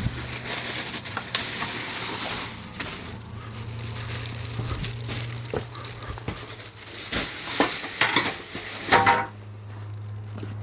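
Crackling, rustling handling noise with scattered knocks as supplies are carried and set down, loudest in a cluster of knocks shortly before it stops about nine seconds in. A low steady hum runs underneath.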